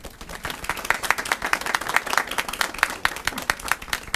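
A small group of people applauding, each clap heard separately.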